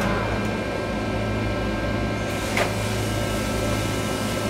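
Metal lathe running at low speed with a steady motor hum. About two and a half seconds in there is one brief, sharp scrape.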